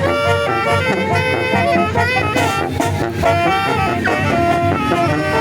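Zacatecan tamborazo band playing: brass and clarinets carry a melody of held notes over the steady beat of the tambora bass drum.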